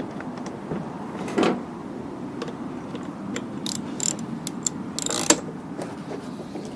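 Socket wrench ratcheting, with scattered metallic clicks and scrapes, as a spark plug is threaded back into a small two-stroke blower engine and tightened.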